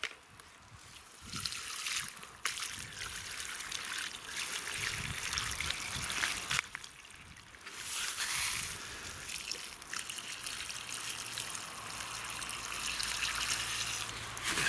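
Water trickling and pouring steadily, as when a plant pot is watered by hand, with a short lull about halfway through.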